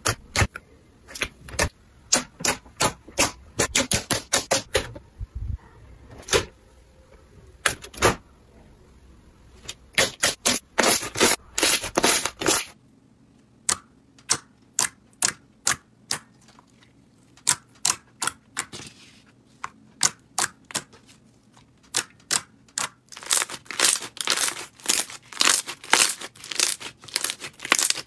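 Slime being pressed and squeezed by hand, giving sharp crackling pops and clicks, some in quick runs and some spaced out. About halfway through, the low background hum changes.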